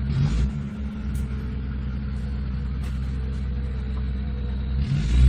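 Off-road vehicle's engine running steadily at low revs, with a short louder rise in revs near the end.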